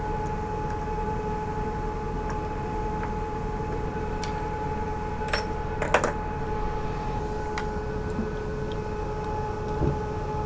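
Steady mechanical hum holding two constant tones, with a few short sharp clicks and knocks about five to six seconds in and one more near the end.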